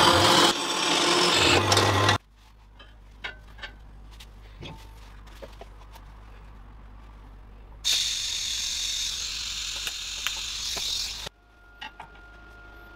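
Vertical bandsaw cutting stainless-steel tube, with a steady hum under the cutting noise, stopping suddenly about two seconds in. A few light clicks follow as the tube is handled, then about three seconds of steady hiss from a TIG welding arc, which cuts off sharply and leaves a faint steady tone.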